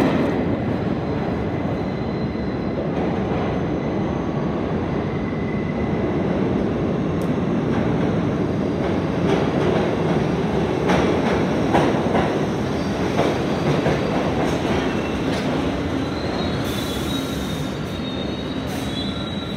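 New York City subway train running into a station and slowing along the platform, a steady rumble of wheels on rail with scattered clicks over the rail joints. A thin high wheel-and-brake squeal joins in near the end as it slows toward a stop.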